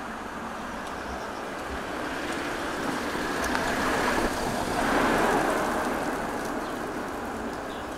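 A rushing noise that swells to its loudest about five seconds in and then eases off.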